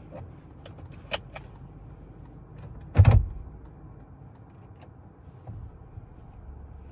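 Toyota Alphard's door shutting with a single heavy thump about three seconds in, after a couple of light clicks, over a low steady rumble.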